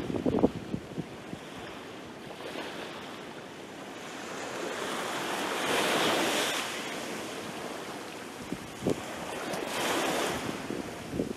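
Small sea waves breaking and washing up the beach, swelling to a peak about six seconds in and again about ten seconds in. Wind buffets the microphone briefly at the start and near the end.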